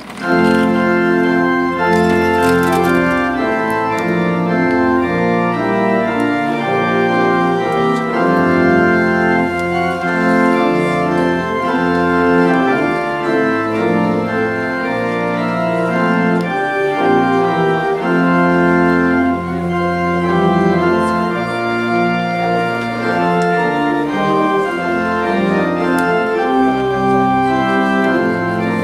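Church pipe organ playing the postlude: full, sustained chords that change steadily, starting suddenly at full volume.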